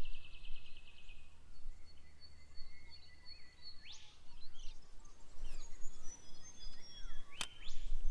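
Birds calling outdoors: thin held whistled notes and short upward-sweeping calls, with one sharp click near the end.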